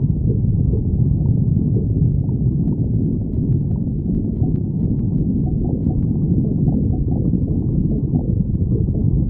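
A woman's stomach growling and gurgling in a continuous low rumble, with a few faint clicks about three to six seconds in.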